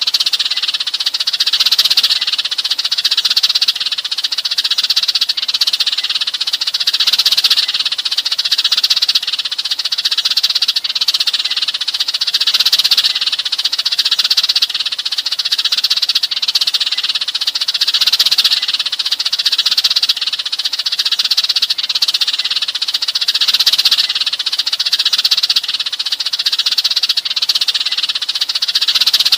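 A flock of sparrows chirping in a dense, continuous chorus: the flock-calling chatter used as a lure to draw sparrows in.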